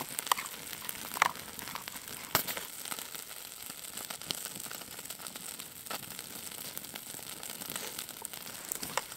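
Spoon stirring a thick noodle stew in a pot, with a steady sizzle and crackle and scattered clicks, a few of them sharper, as the spoon works through the pot.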